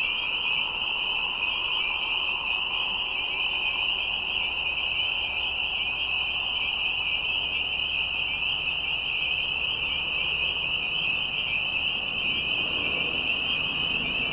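Dense chorus of spring peepers at a wetland, many high-pitched peeps blending into one steady, unbroken ring. A fainter, lower calling is also heard during the first few seconds and then fades.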